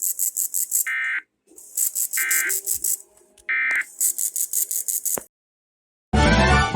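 Emergency Alert System end-of-message data tones: three harsh, buzzy bursts about a second apart, closing the test alert. Music starts abruptly near the end.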